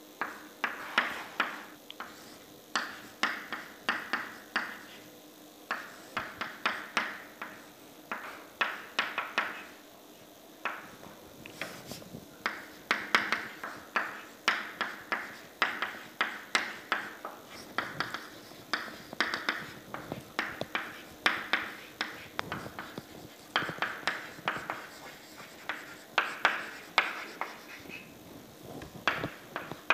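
Chalk writing on a chalkboard: quick, irregular taps and short scratchy strokes, coming in clusters with brief pauses between them.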